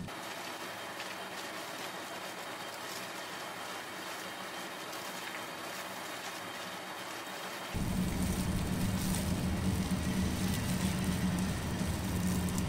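Wet squelching and crackling as gloved hands rub red pepper seasoning into napa cabbage leaves in a stainless steel pan, making kimchi. About eight seconds in, a steady low hum comes in beneath it.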